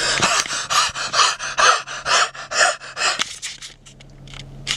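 Quick, rhythmic panting breaths, a few per second, that stop after about three seconds; a sharp click near the end.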